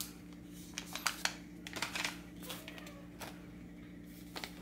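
Sealed plastic-and-paper peel packs of butterfly needles rustling and crinkling as they are handled, in a handful of short, scattered crackles and taps. A faint steady low hum runs underneath.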